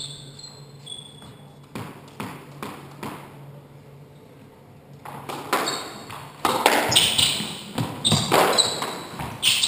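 Squash ball and players' shoes on an indoor court. A few short shoe squeaks on the wooden floor and scattered ball taps come first. From about five seconds in, a rally runs: sharp strikes of the ball off racket and walls, mixed with repeated quick squeaks of shoes on the parquet, echoing in the court.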